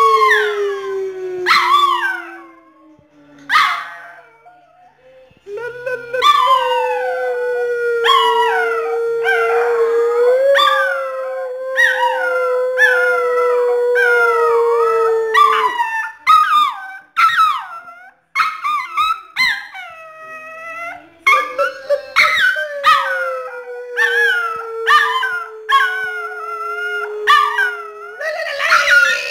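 Small dog howling in long, drawn-out howls, the first falling in pitch, then two long held ones, with shorter, higher cries over them and brief pauses between.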